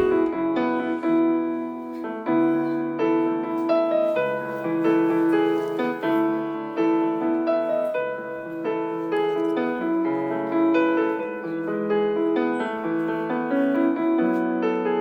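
Background music played on piano, a gentle flowing melody over sustained chords.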